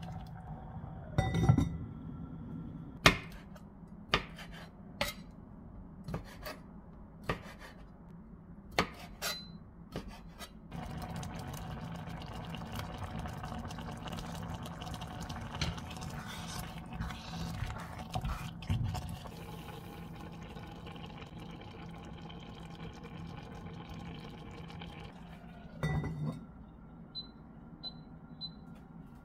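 A spoon knocking and scraping against a cast-iron pot while rice is stirred. This is followed by several seconds of liquid bubbling and hissing in the hot pot as shrimp go in. Near the end, three short high beeps come from an induction hob's touch controls.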